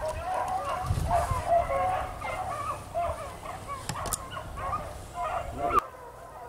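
A pack of beagles baying in chorus while running a rabbit on its scent, many voices overlapping. The baying cuts off suddenly near the end.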